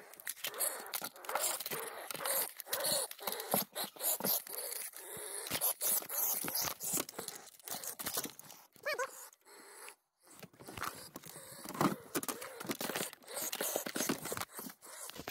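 Repeated scraping, knocking and rustling under a dresser as a long-handled grabbing tool prods at a possum. A short wavering cry is heard about nine seconds in, and there is a brief lull just after.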